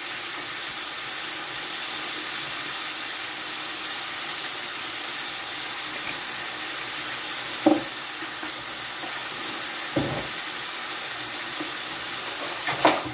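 Chicken pieces with garlic, onion and tomato sizzling steadily in hot oil in a wok, with a few light knocks in the second half.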